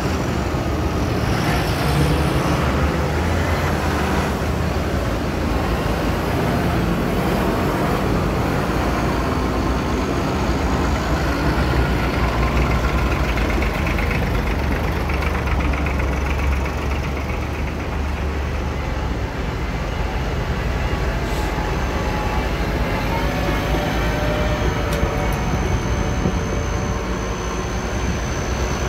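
Tractors driving past one after another, their engines running with a steady low drone that swells as each passes; a large modern John Deere goes by at the start and again near the end, with a small vintage tractor in between.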